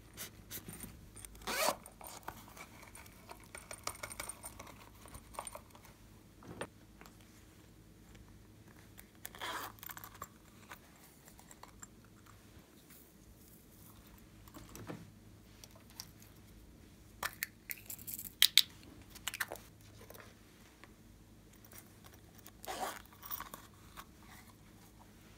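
Hands handling small objects and sprinkling glitter over slime in a glass tray: scattered short taps, crackles and scrapes, with a cluster of sharp clicks past the middle.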